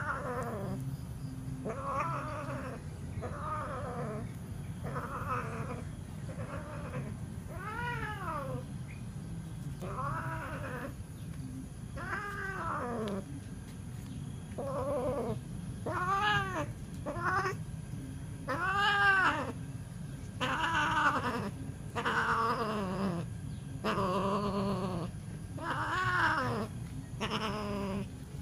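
Domestic cats mating, with a cat caterwauling again and again: drawn-out yowls, each rising and then falling in pitch, one every one to two seconds. They grow louder and come closer together after about fifteen seconds.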